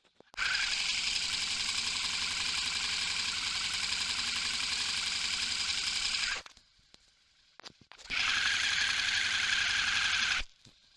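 Suzuki V-Strom 650's 645 cc V-twin engine running, picked up through a contact microphone on the bike: a dense, fast mechanical clatter. It cuts off sharply about six seconds in, starts again about two seconds later, and stops abruptly near the end.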